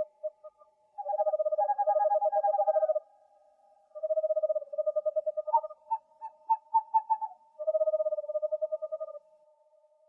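Owls calling in rapid trilled hoots: three long trills of about two seconds each, with a run of separate hoots between them. Two pitches sound at once, overlapping.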